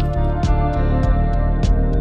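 Background music: sustained instrumental chords with a steady beat of light percussive hits.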